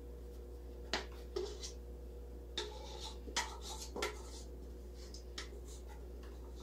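Plastic bowl scraper scraping and knocking against the inside of a stainless steel mixing bowl as sticky bread dough is scraped out, a handful of sharp scrapes and taps, the loudest about a second in and between three and four seconds in. A steady low hum runs underneath.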